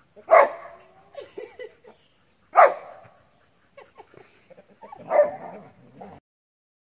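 Australian shepherd-type dogs barking: three loud, sharp barks about two and a half seconds apart, with quieter yips and scuffling between them.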